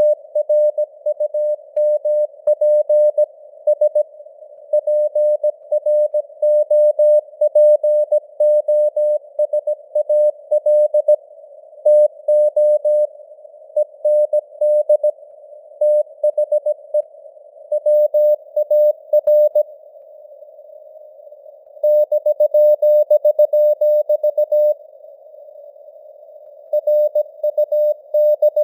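Morse code (CW) sent at 17 words per minute: a single steady tone keyed on and off in dots and dashes, over a narrow band of simulated radio hiss, with the signal strength fading up and down (QSB). There are two pauses of about two seconds in the second half.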